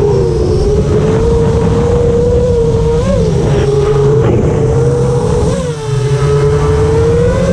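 Quadcopter's brushless motors whining steadily, the pitch dipping and briefly rising with throttle changes about three and five and a half seconds in, over low rushing wind noise.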